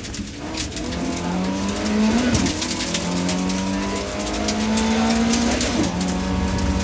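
BMW E30 318is rally car's four-cylinder engine heard from inside the cockpit under hard acceleration, the revs climbing steadily and dropping sharply at gear changes about two and six seconds in.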